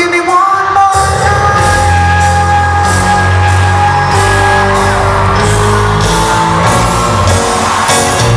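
A live band playing in an arena, heard from high in the stands: a steady drum beat with cymbal strokes and heavy bass under a long held note.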